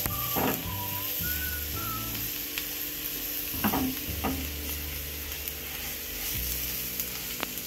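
Onions and crushed garlic frying in oil, sizzling steadily as they are stirred, with a few sharp clicks of the spoon against the pan.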